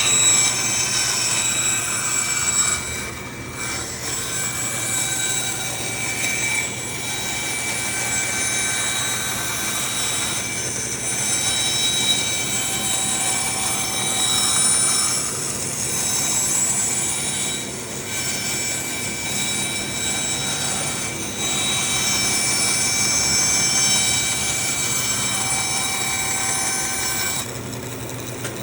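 Bandsaw running and cutting a circle from a wood blank on a circle-cutting jig: a steady whine with hissing, dipping briefly a few times as the cut goes round, and quieting near the end.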